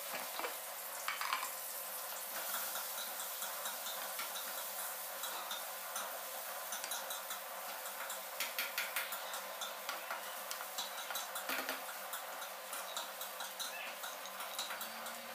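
A spoon stirring and scooping fried rice in a metal pressure cooker, with scattered scrapes and clicks against the pot over a steady hiss.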